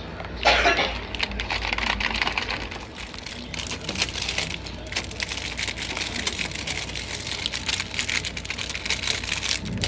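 Dense crackling and clicking of plastic snack packets being handled while a vending machine is restocked, with a louder rustle about half a second in.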